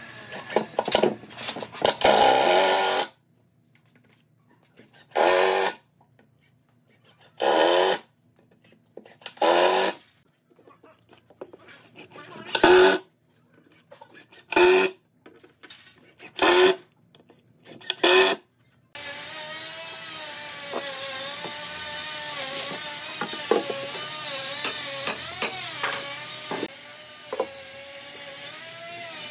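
A power tool run in short bursts of about half a second, seven times at intervals of roughly two seconds, after a few seconds of denser tool noise. For the last ten seconds there is a steady sound with a wavering pitch.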